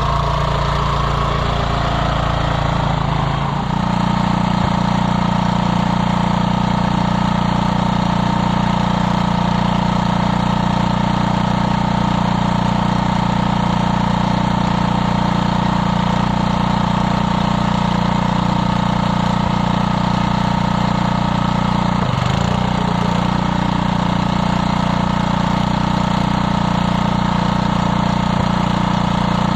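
Single-cylinder 3.5 hp Briggs & Stratton engine of a 1979 Gilson-built Montgomery Ward snowblower, running steadily. About three seconds in it speeds up and gets a little louder, then holds that speed, dipping briefly once and recovering about two-thirds of the way through.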